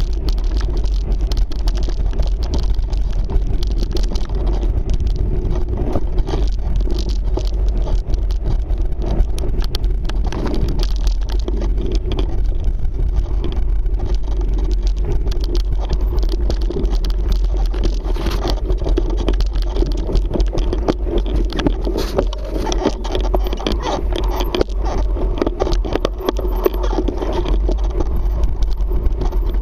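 Mountain bike riding down rocky dirt singletrack: steady wind buffeting on the camera microphone, with tyres crunching over dirt and stones and the bike rattling in many small clicks and knocks.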